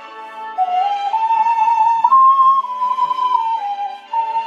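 Ocarina playing a slow melody of held, pure-toned notes that climb over a few steps and fall back near the end, over a soft digital-piano accompaniment.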